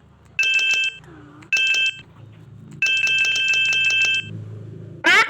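A trilling electronic telephone ringtone, pulsing about ten times a second, sounds in three bursts; the third is the longest. A short voice comes in at the very end.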